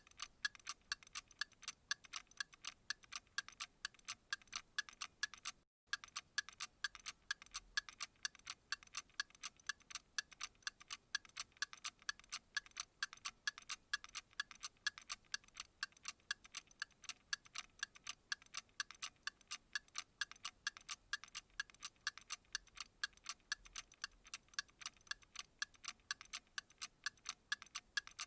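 Steady, even ticking, several sharp ticks a second, with a brief drop-out about six seconds in.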